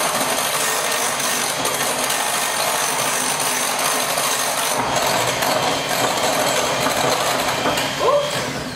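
Electric hand mixer running steadily, its beaters whirring through cake batter in a glass bowl; it stops right at the end.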